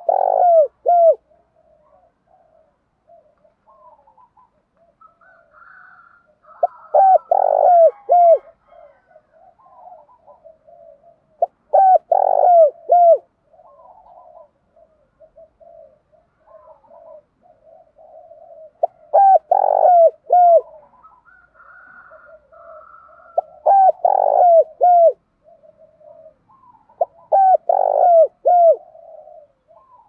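Spotted dove cooing: six loud coo phrases of a second or two each, repeated every four to seven seconds, with softer cooing between them.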